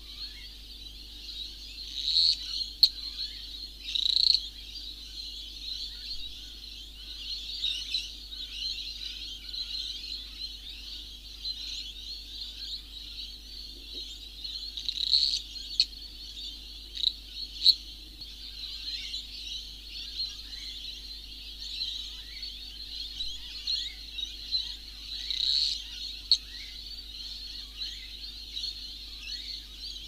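Dense wildlife chorus of many high, rapid chirping calls. Louder bursts of calls come about two, four, fifteen, seventeen and twenty-five seconds in.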